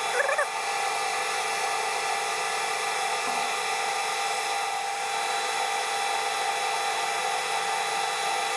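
Metal lathe running steadily, a carbide TNGG insert taking a light finishing cut along the outside of a metal bar: an even machine whine of several fixed tones over a hiss. A brief chirp just after the start.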